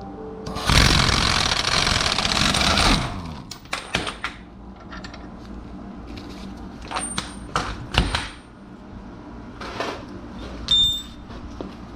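An impact wrench hammers for about two and a half seconds on a 32 mm CV axle nut and breaks it loose. Sharp metal clicks and knocks of tools being handled follow.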